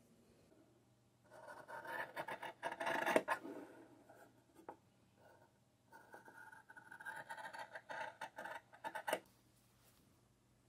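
Fabric shears cutting through linen along a drawn thread: two spells of rapid snipping, the first about a second in and the second about six seconds in, each lasting two to three seconds.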